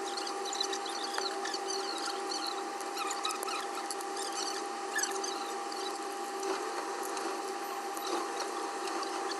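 Small hand tools scraping and clicking against a phone's back, with many quick scratches and ticks over a steady hum.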